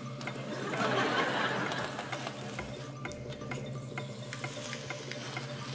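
Food sizzling on a hot electric flat griddle. The sizzle swells louder about a second in, then settles into a steady fry with scattered light clicks.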